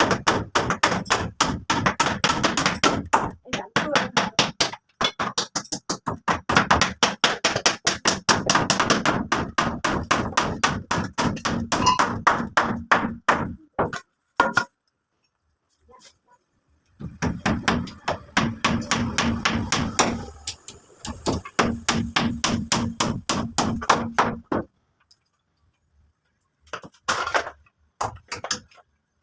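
Rapid hammering, several blows a second, in two long runs with a pause between them and a short burst near the end.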